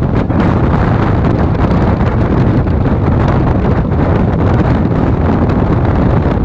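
Loud, steady wind buffeting on a microphone held out of a moving Indian Railways express coach, over the low rumble of the train running at speed.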